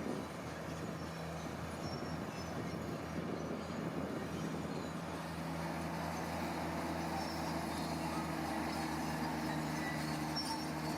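Heavy construction machinery engine running steadily, a low continuous hum with a steady tone that grows clearer about halfway through.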